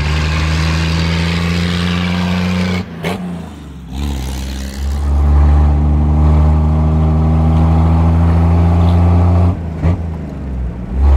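1934 Lagonda M45 tourer's Meadows straight-six running under load on the road, a steady deep engine note that slowly rises in pitch. The note falls away briefly twice, about three seconds in and again near the end.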